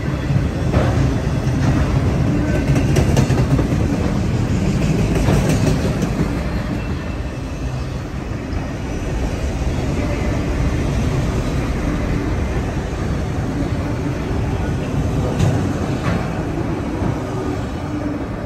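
Autorack freight cars rolling past on steel wheels: a steady rail rumble with scattered sharp clacks as wheels cross rail joints, easing off slightly near the end.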